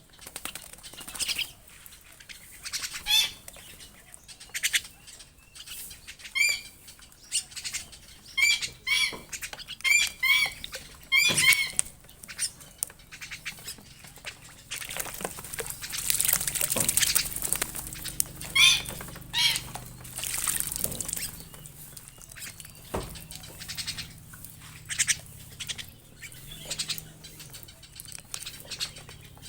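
A small bird chirping in short runs of sharp, high calls, with a longer stretch of rustling noise about halfway through.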